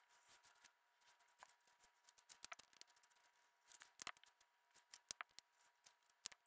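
Faint scratching, clicks and taps of felt-tip markers drawing on paper, with the paper being handled and lifted near the end.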